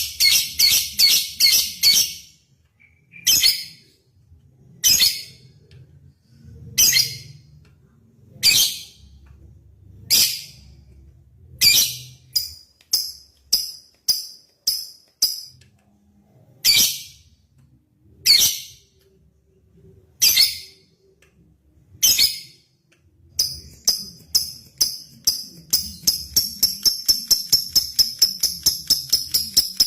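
Lovebird calling with sharp, high chirps: a quick run at first, then single chirps every second or two, then near the end a long, unbroken run of rapid chirps, the drawn-out 'ngekek' chatter.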